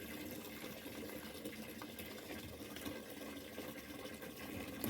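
Water running steadily in a semi-automatic washing machine as it is filled and tested for leaks at the drain.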